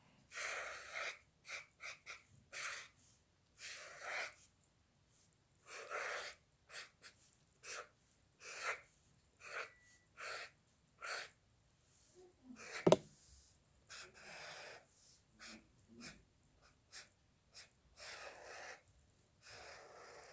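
A pen or stylus scratching on a drawing surface in short, irregular strokes, with one sharp tap about thirteen seconds in.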